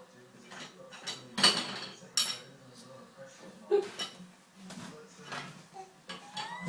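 A metal spoon clinking and rattling against the dishwasher's racks as it is dropped through, in a run of separate sharp, ringing clinks; the loudest come about one and a half, two and four seconds in.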